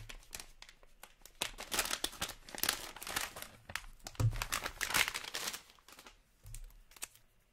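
Foil card-pack pouch crinkling and rustling in bursts as it is opened and a cased card is slid out, with a few soft knocks; it fades out over the last couple of seconds.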